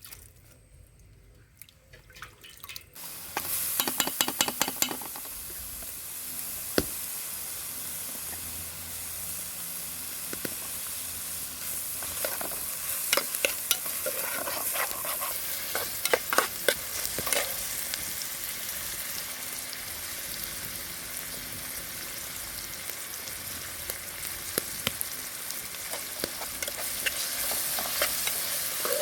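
Food sizzling in hot oil in a cooking pot, with a utensil stirring and scraping against the pot in short bursts. The sizzle starts about three seconds in.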